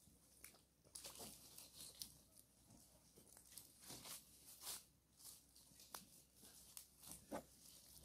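Faint, irregular crackling and ticking of dry leaves and undergrowth being disturbed close by.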